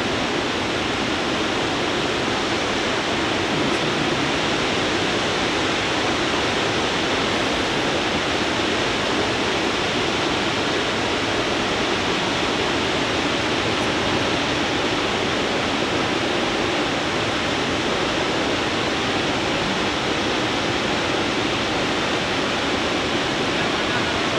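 Waterfall crashing steadily: a loud, unbroken rush of falling water.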